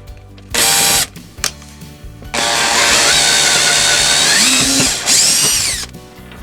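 Power drill boring a hole through the model railroad layout's table: a short trigger pulse about half a second in, then a steady run of about two and a half seconds, and a last brief burst whose whine rises and falls before it stops.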